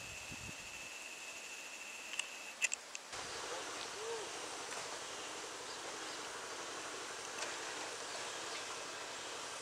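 Quiet rural outdoor ambience: a steady high-pitched drone with a few sharp chirps about two seconds in, then, after an abrupt change about three seconds in, an even background hiss.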